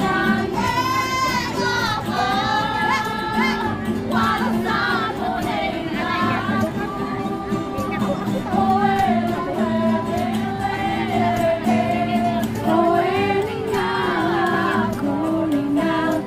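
Several voices singing together to a strummed acoustic guitar and ukulele, with the sung melody continuous throughout.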